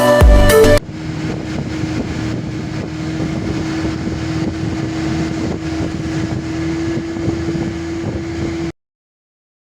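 Motorboat engine running steadily, with wind buffeting the microphone. It comes in as music cuts off about a second in, and stops abruptly near the end.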